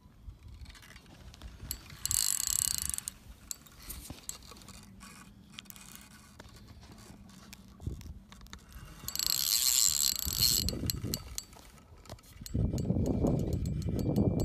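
Spinning reel on a light rod clicking in two fast bursts, about two seconds in and again around nine to ten seconds, with fainter ticks between. Near the end a louder rushing noise comes in.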